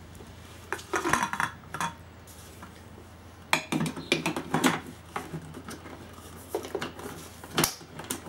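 Kuchef Thermo Cook's stainless-steel jug and plastic lid being set onto the machine's base: a series of clunks and clicks in three short clusters, with one sharp click near the end.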